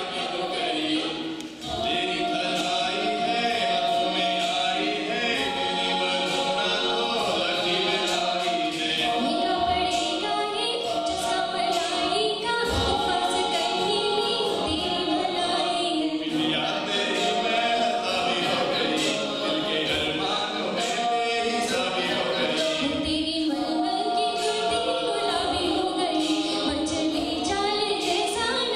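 Mixed a cappella group of male and female voices singing unaccompanied in harmony through stage microphones.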